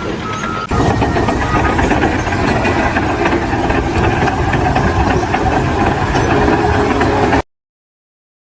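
A loud engine running steadily, starting abruptly just under a second in and cutting off suddenly about seven seconds in, followed by total silence.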